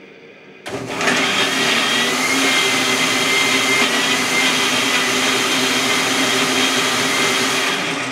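Countertop jug blender switched on under a load of crumpets and orange pieces: the motor starts abruptly a little under a second in and runs loud and steady with a high whine, then begins to wind down right at the end.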